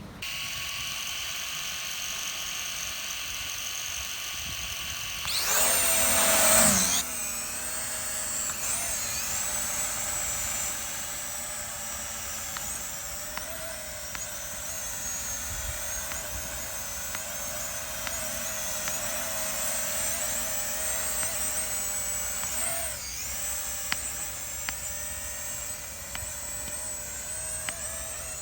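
Small quadcopter drone's propellers whining steadily in flight, the pitch wavering slightly, with a louder surge that rises and falls in pitch about six seconds in.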